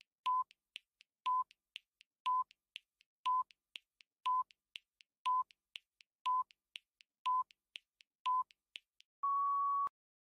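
Countdown timer sound effect: a short electronic beep once a second with quieter ticks between, about four ticks a second, then a longer, slightly higher beep about nine seconds in as the count reaches zero.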